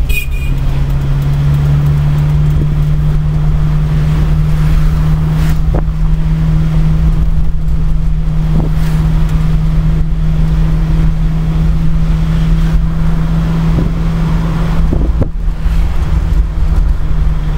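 Car running along a street, heard from inside the cabin: a loud, steady low engine drone with road rumble, and a few short sharp knocks along the way.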